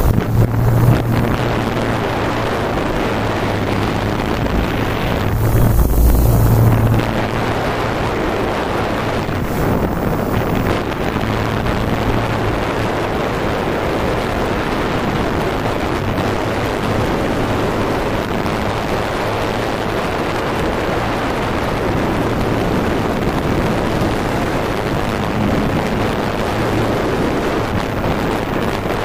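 Quadcopter's electric motors and propellers humming steadily, heard from the camera on board, with wind noise on the microphone. A louder, deeper surge comes about six seconds in.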